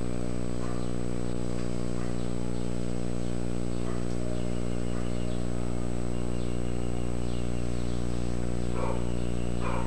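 A steady low hum with many even overtones, unchanging throughout, with a couple of faint short knocks near the end.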